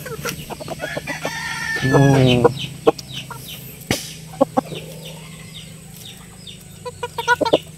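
Chickens clucking, and a rooster crowing once from about one to two and a half seconds in. After the crow come many short, high chirps and a few light clicks.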